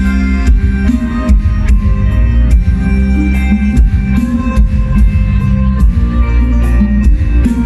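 Loud instrumental band music with a steady drum beat and heavy bass under sustained melodic lines.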